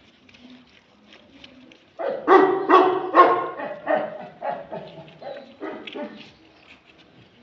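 Puppies barking: after a quiet start, a quick run of about eight loud barks begins about two seconds in, then grows weaker and sparser near the end.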